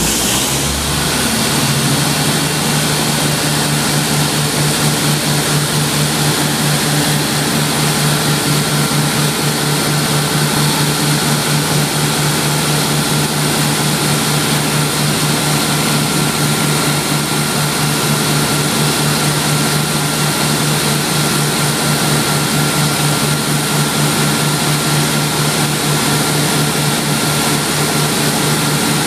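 Cummins diesel engine of an 800 kW Elcos generator set that has just started. It settles to a steady governed speed about a second in and then runs at a constant, even hum, with a faint steady high whine above it.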